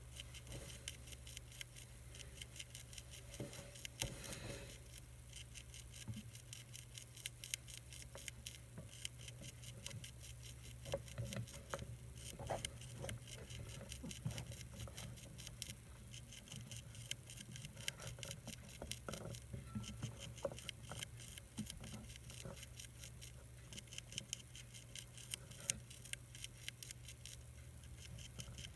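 Monarch caterpillar chewing the edge of a milkweed leaf: a faint, steady run of fine clicks, busier in the middle, over a low steady hum.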